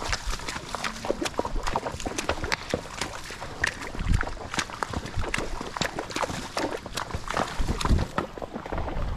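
Horses walking, with irregular hoof clicks and occasional low thuds.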